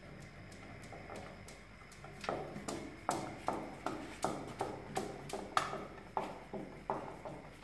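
A hand screwdriver driving a screw into the metal bracket of a clothes-drying rack: from about two seconds in, a regular click with each twist of the screwdriver, about two to three a second.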